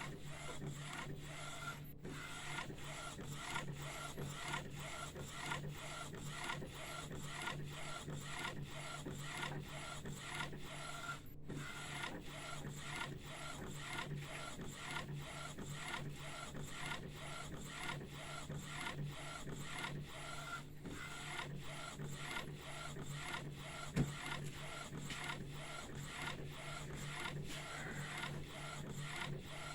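1390 UV flatbed printer running a test print: the print-head carriage sweeps back and forth in a fast, even rhythm over a steady hum, with one sharper click late on.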